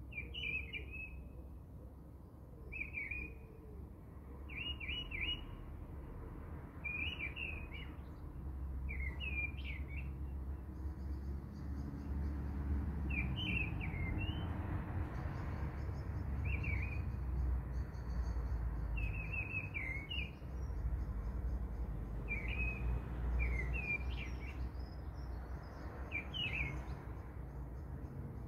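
A small bird sings a short chirping phrase again and again, every two to three seconds, over a steady low rumble that grows louder about a third of the way in.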